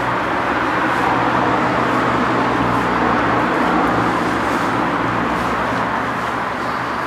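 Car engine and tyre noise on a road, swelling to a peak about halfway through and easing off again.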